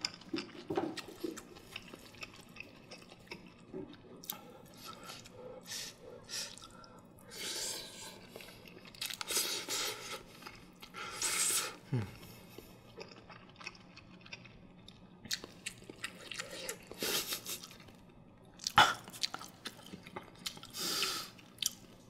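Close-miked chewing and wet mouth sounds of a person eating soft steamed egg mixed with rice, with a few sharp clicks of a spoon against the earthenware pot.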